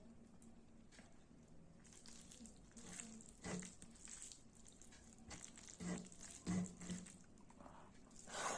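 Faint close-up eating sounds: chewing and small mouth clicks, with a few louder clicks about three seconds in and again around six to seven seconds in.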